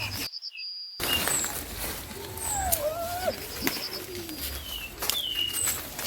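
Bird calls: short high chirps and a few gliding whistles, broken by a sudden drop to silence lasting under a second near the start.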